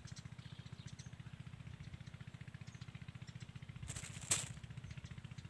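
A small engine running steadily, with a low, rapid, even putter. A brief crackly rustle about four seconds in.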